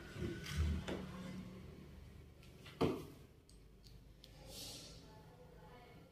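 Handling knocks on a tabletop as wooden blocks are set down and a cordless drill is picked up: a few soft thumps in the first second, then one sharp knock near three seconds. Otherwise quiet.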